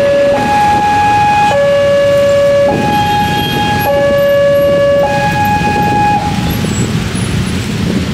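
Railway level-crossing warning siren: an electronic two-tone alarm alternating between a low tone and a high tone a fifth above it, each held a little over a second. It cuts off about six seconds in, once the train has cleared the crossing. Underneath runs the low rumble of waiting motorbike engines and road traffic.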